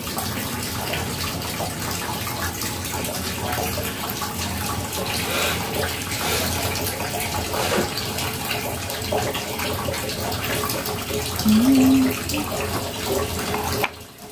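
Kitchen tap running water, a steady rush that stops abruptly near the end. A short pitched sound stands out shortly before it stops.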